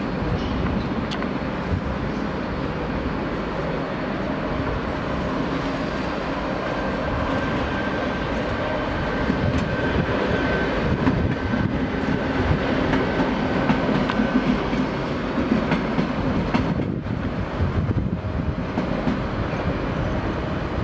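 ČD class 471 CityElefant double-deck electric unit arriving and running past, its wheels clacking over rail joints and points, the knocks growing sharper from about ten seconds in. A thin steady whine rides over the rumble from about six to twelve seconds in.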